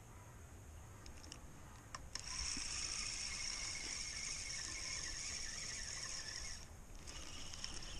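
Fixed-spool fishing reel being wound in, a faint steady whirr. A few light clicks come first, and the whirr starts about two seconds in. It breaks off briefly near the end and then starts again.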